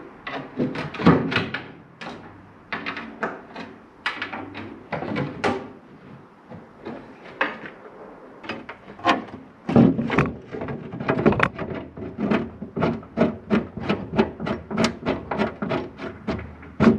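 Metal clicks and clanks of a spanner working on bolts on a dumper's steel body panel. The knocks are irregular at first, then about ten seconds in they become a quicker run of clicks, about three a second.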